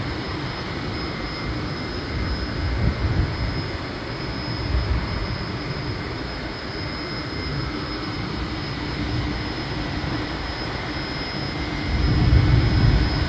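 Steady jet-like roar of an offshore platform's gas flare burning off a heavy release of gas, with faint steady machinery tones under it. The low rumble grows louder near the end.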